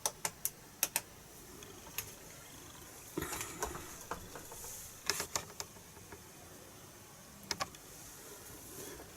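Plastic buttons on a Taranis radio transmitter clicking as they are pressed to work through its menus: scattered single clicks and small quick runs of them, with a brief rustle of handling a little after three seconds in.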